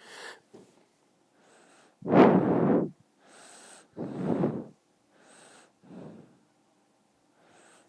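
Five-month-old baby snoring in his sleep. There are three rough snores, the first about two seconds in the loudest, each followed by a softer, breathy breath, and they grow weaker toward the end.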